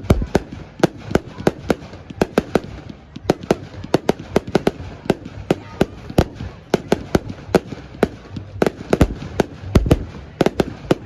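Fireworks going off in a rapid, irregular string of sharp bangs and crackles, several a second, with a few deeper booms about nine to ten seconds in.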